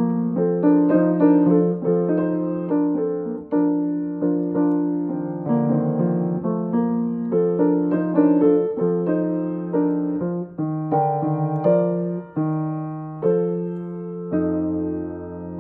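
Piano played with both hands: a steady flow of separate notes over held lower notes, with a deep bass note coming in near the end.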